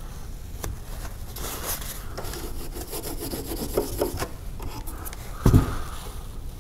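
A paper towel rubbing and wiping over the airplane's surface, scuffing irregularly with small clicks, as excess glue is cleaned off around the landing gear. A short, louder thump comes about five and a half seconds in.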